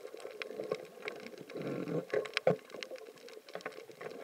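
Underwater reef ambience: scattered sharp clicks and crackles over a steady wash of water noise. About a second and a half in there is a louder gurgling rush of water that lasts about a second.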